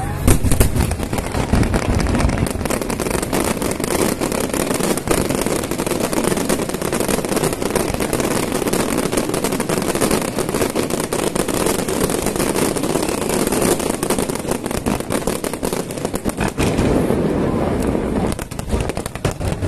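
Fireworks display going off in a dense, unbroken barrage of bangs and crackling, with a loud bang right at the start.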